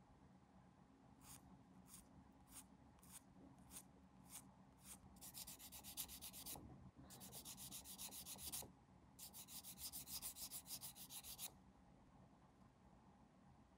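Faint hand sanding of a small plastic model part. About seven separate strokes come roughly every half second, then three runs of quick back-and-forth strokes.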